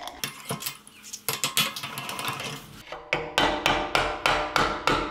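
Hammer blows on the metal sleeve of a rubber frame bushing, driving it out of a mini bike's frame. A few scattered knocks, then steady strikes about three a second from about three seconds in.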